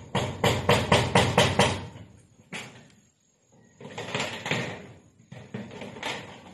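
Power drill driving tek screws into corrugated metal roof sheeting: a rapid run of loud clattering knocks on the metal for about two seconds, a softer rough grinding stretch a little after the middle, and more knocks near the end.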